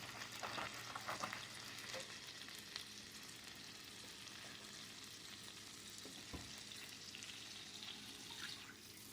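Faint, steady sizzling from a pan of butter and garlic on the stove, with a few light clicks in the first couple of seconds.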